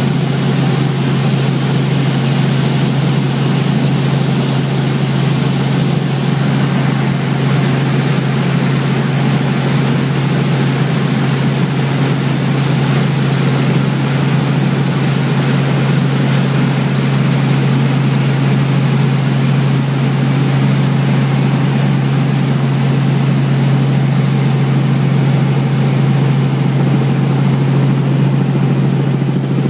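Helicopter in flight, heard from inside the cabin: a loud, steady drone of rotor and engine, with a thin high whine above it that shifts pitch about two-thirds of the way through.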